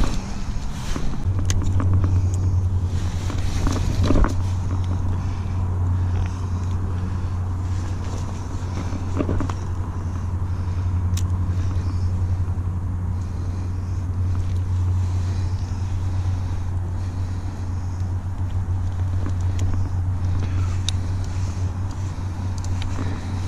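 A steady low rumble begins about a second in and holds, with a few sharp clicks and rustles from forceps and a landing net as a pike is unhooked.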